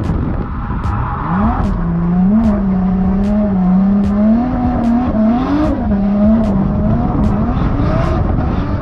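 Toyota Chaser JZX90's engine revving hard through a drift, heard from inside the cabin, its pitch rising and falling again and again as the throttle is worked.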